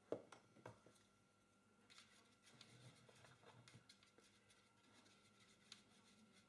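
Near silence: a light knock just after the start with a couple of smaller taps, then faint small ticks and scratching as a fine paintbrush works paint in a plastic palette.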